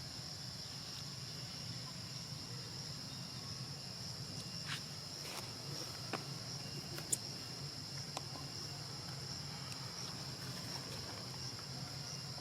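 Insects keeping up a steady high-pitched drone, with a few faint clicks scattered through the middle.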